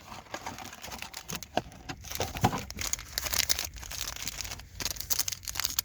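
Plastic wrapping of a trading-card blaster box and its packs being torn open and crinkled by hand, a run of irregular crackles and rips.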